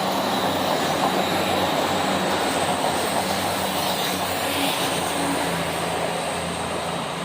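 Diesel-hauled freight train passing through a station: a steady engine hum under the rush of wagons on the rails, easing off slightly near the end.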